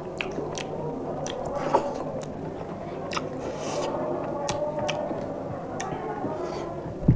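Chewing and eating sounds of two people eating rice and fish curry by hand, with scattered small clicks. A single louder thump comes near the end.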